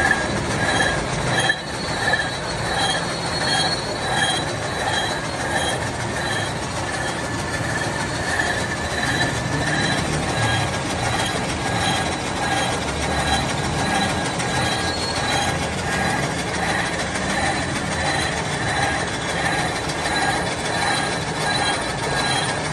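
Milling machine cutting gear teeth into a cast iron gear with a disc-type gear form cutter: a steady metallic grinding whine from the cutter and machine, pulsing about twice a second as the cutter turns.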